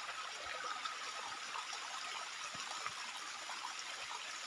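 Running water, a steady even rush from a nearby stream or waterfall, with a few faint ticks over it.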